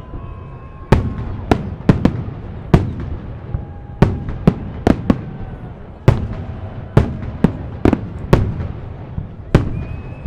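Fireworks salute shells bursting in the sky: a rapid, irregular series of sharp bangs, some in quick pairs, each followed by an echoing tail over a continuous low rumble.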